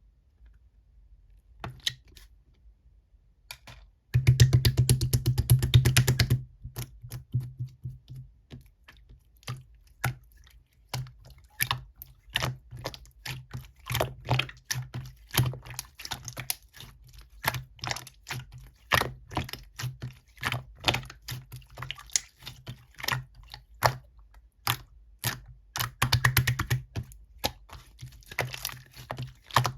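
Keyboard typing: irregular sharp key clicks that start after a short quiet moment. Two dense, louder runs of rapid clicking come about four seconds in and again near the end.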